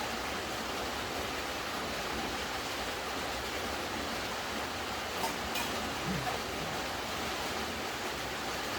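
Steady rain falling, an even hiss that holds level throughout, with a couple of faint clicks about five seconds in.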